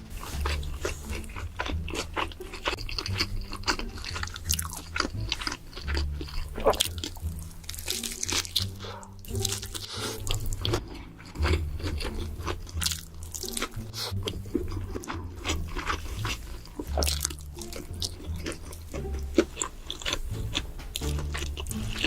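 Close-up eating sounds: repeated crunchy bites and chewing of food such as pizza or a burger, in irregular sharp crackles. Low background music with a bass line plays underneath.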